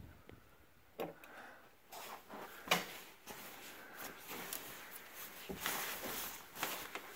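Clothes hangers sliding and clicking along a closet rod as hanging garments are pushed aside by hand, with fabric rustling. The clicks come irregularly, a sharper one a little under three seconds in.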